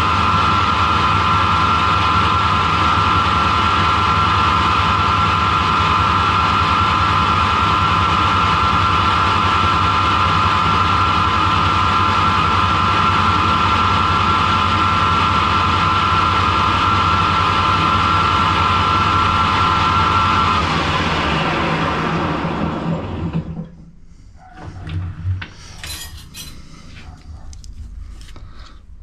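Harrison lathe running with a steady high whine while turning down the end of an EN8 steel threaded bar. About twenty seconds in it is switched off and spins down over a few seconds. Light clicks and scrapes follow as the work is handled at the stopped chuck.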